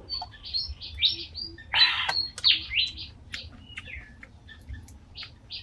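Small birds chirping in many quick, short, high notes, with one louder, harsher burst about two seconds in.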